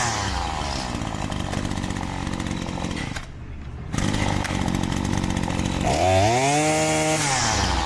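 Husqvarna 525L string trimmer's two-stroke engine idling, dropping out briefly about three seconds in, then revved up to full throttle about six seconds in and let back down to idle near the end. Its carburetor idle is a little iffy: the mechanic suspects a check valve that isn't holding.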